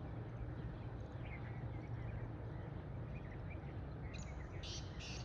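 Steady low outdoor background noise with faint scattered small chirps, then a black francolin calling in a few short loud notes about four seconds in.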